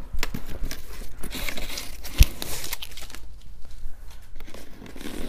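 Rustling, crinkling and tearing noises as a cardboard box and its packing are handled and opened by hand, with one sharp thump about two seconds in.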